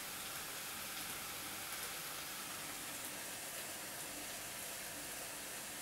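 Steady faint hiss with a few faint crackles scattered through it.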